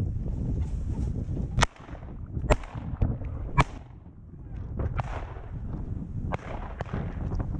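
Three sharp cracks about a second apart, then a few fainter clicks, over gusting wind noise on the microphone.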